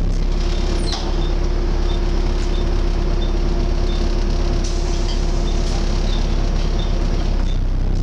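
Volvo B7TL double-decker bus driving, heard from the upper deck: a steady diesel drone with the vacuum-cleaner-like 'mad hoover' hum of its engine cooling fan, which stops near the end. A faint high tick repeats about every two-thirds of a second.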